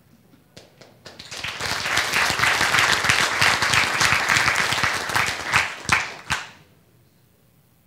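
Audience applauding: a few scattered claps, then a round of clapping that runs for about five seconds and dies away with a couple of last claps.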